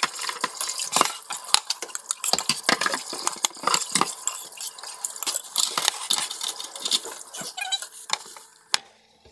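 A ladle and chopsticks clinking and scraping against a pan and a ceramic plate as saucy pasta is dished up: a dense run of quick clicks and scrapes that stops shortly before the end.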